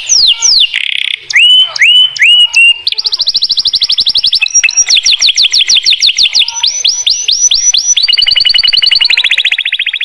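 Canary singing a loud, continuous song: a few falling whistled sweeps, then one fast trill of rapidly repeated notes after another, each roll on a different note.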